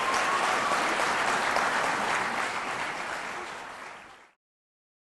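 Audience applauding at the end of a dance performance, the clapping fading out and ending about four seconds in.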